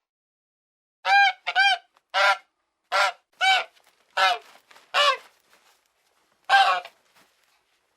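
A bird giving a series of short calls, about nine in all at uneven spacing, each call arching up and then down in pitch.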